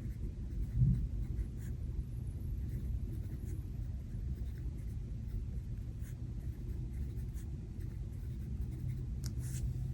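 Pen writing on planner paper: faint, light scratches of the strokes over a steady low rumble.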